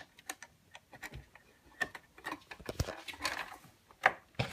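A RAM module being pressed into a desktop motherboard's memory slot, with its retaining clips clamped shut: a run of irregular light plastic clicks and taps, with a brief rustle about three seconds in.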